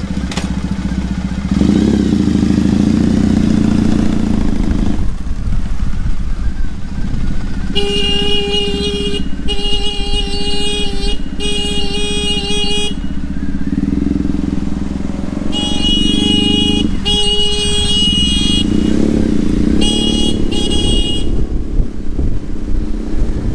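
Motorcycle engine running as the bike pulls away and rides on, with its horn honked in groups of beeps: three long beeps about eight seconds in, two more around sixteen seconds, and two shorter ones around twenty seconds. The honks are warnings given before entering a junction.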